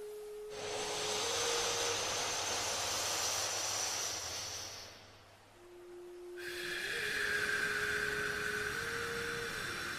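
Slow yogic nasal breathing for alternate nostril breathing: a long, even inhale through one nostril lasting about four seconds, a short pause, then a long exhale through the other nostril. Faint soft tones that change pitch now and then hold underneath.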